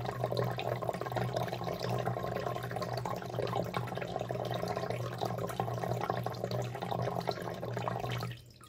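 Tunze Osmolator 3 auto top-off pump running with a steady hum while refill water splashes and trickles into the tank. It cuts off suddenly near the end, the sign that the water level is back up and the sensor has stopped the refill.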